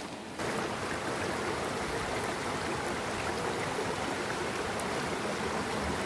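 Shallow rocky stream flowing, a steady rush of water that comes in suddenly about half a second in.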